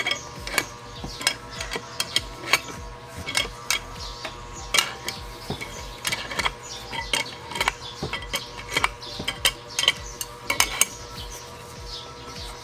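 Irregular metallic clicks and clinks of a wrench turning the nut on a bearing puller, drawing a stubborn needle bearing out of a Yamaha DT125 two-stroke crankcase.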